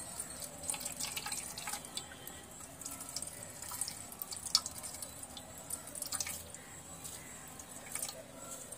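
Water wrung out of grated ash gourd in a cloth bundle, dripping and trickling into an aluminium pot in irregular drops and small splashes.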